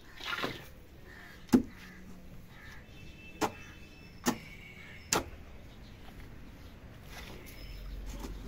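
Long-handled digging hoe striking hard, dry earth: four sharp chops over the first five seconds or so, the first the loudest, with a short scrape of soil at the very start.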